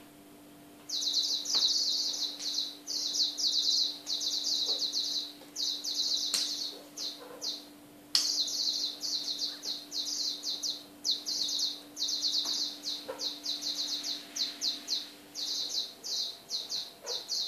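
Rapid, high-pitched bird-like chirping in quick bursts, starting about a second in and repeating in short runs with brief gaps.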